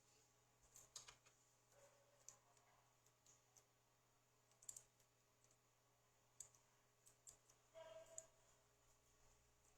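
Faint, irregular clicks and taps of a video cassette's plastic shell and parts being handled during repair, about seven scattered clicks.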